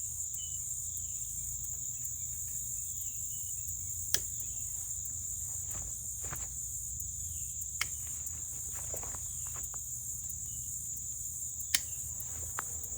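A steady, high-pitched chorus of insects in the pasture grass, broken by a few sharp clicks.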